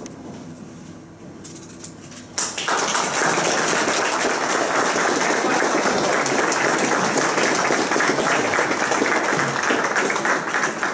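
A small crowd bursts into applause about two and a half seconds in and keeps clapping steadily.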